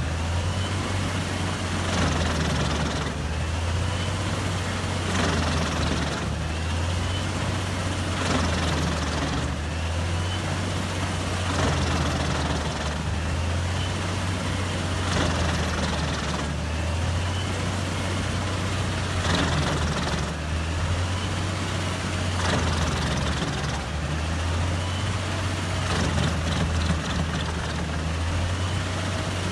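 Wood chipper running: a steady low engine drone, with a swell of noise about every two seconds as wood goes through.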